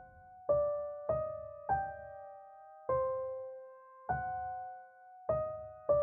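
Music: a slow melody of single keyboard notes on a piano-like tone, each note struck and left to ring and fade before the next.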